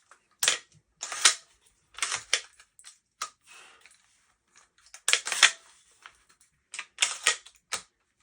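Metal clacks and clicks of a 12 gauge semi-auto bullpup shotgun's action being worked by hand: the charging handle pulled back, the bolt locked back and released, and the controls operated. About eight sharp clacks in irregular clusters, the loudest about a second in and about five seconds in.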